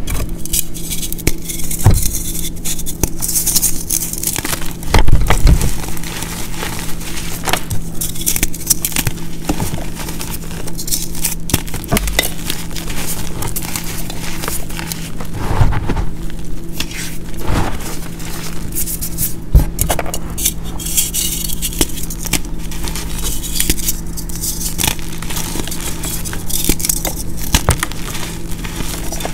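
Hands crushing and crumbling pressed blocks of a chalky powder mix (gym chalk, baby powder, corn starch and baking soda): dense, crispy crackling and crunching with soft powdery crumbling, over a steady low hum.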